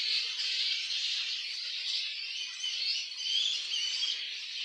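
A roosting flying-fox colony chattering: a steady, high-pitched din of many overlapping squeaks and chirps.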